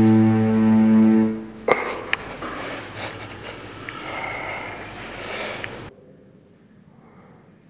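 Film score: a held low drone, like bowed strings, stops about a second and a half in. A sharp hit follows, then a few seconds of scratchy, noisy texture that cuts off suddenly about six seconds in, leaving it much quieter.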